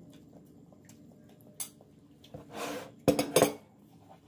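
Metal forks clinking and scraping on ceramic plates, with a single click about one and a half seconds in and a quick run of sharp clatters about three seconds in, the loudest part.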